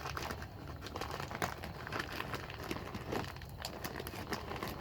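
Plastic packaging of granular protein deer attractant being handled and opened, with irregular crinkling and crackling.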